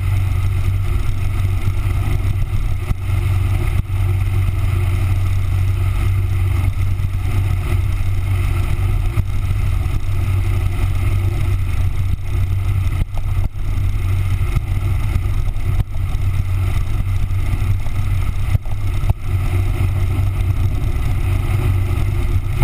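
Yamaha R1 sport bike's inline-four engine running at a steady cruise, its low drone mixed with wind and road noise. The level holds steady apart from a few brief dips.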